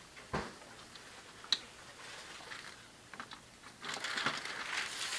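Wrapping paper and gift packaging being handled: scattered light clicks and rustles, a soft thump about half a second in and a sharp click a second later, with denser rustling of paper near the end.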